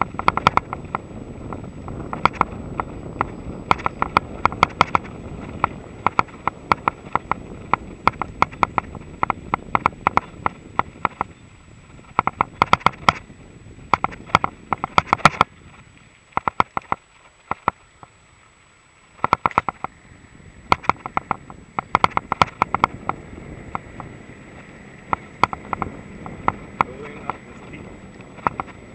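Mountain bike riding over dirt and sand tracks: irregular bursts of rattling clicks as the bike jolts over bumps, over a steady rumble of tyres and wind. The sound drops off briefly a little past halfway.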